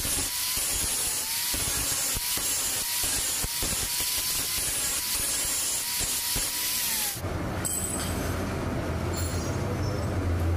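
Steel being ground against an abrasive wheel: a harsh, hissing grind with a faint steady whine, which stops about seven seconds in and leaves the grinder's motor humming on its own.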